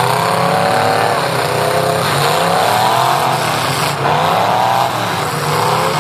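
Demolition derby car engines revving hard. The pitch rises and falls in about four surges.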